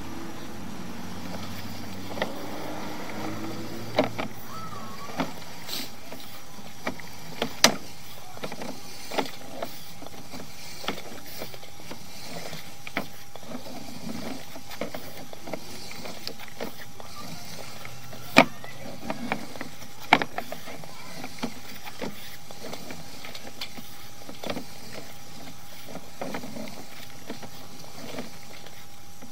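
Sewer inspection camera's push cable being pulled back out of the drain line and wound onto its reel: a steady background noise with irregular clicks and knocks, a few louder knocks about seven and a half, eighteen and twenty seconds in.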